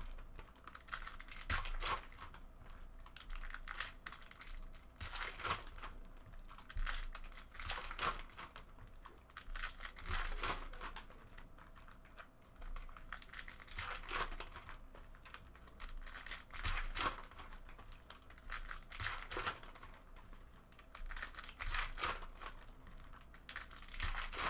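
Foil trading-card pack wrappers being torn open and crinkled one after another, in short rustling bursts every second or two, with light knocks as cards are set down in stacks on the table.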